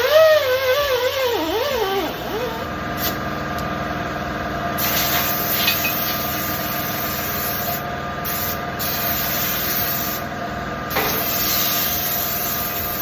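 A power tool runs steadily, scrubbing the tire-bead seating surface of a steel wheel rim clean, with a scraping hiss that comes and goes. Its pitch wavers up and down in the first couple of seconds as it bears on the metal.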